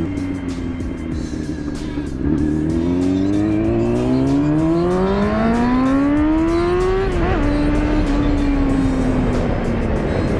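Motorcycle engine pulling away and accelerating, its note rising smoothly for several seconds, with a quick upshift about seven seconds in before it settles to a steady cruise. Wind buffets the microphone of the riding bike.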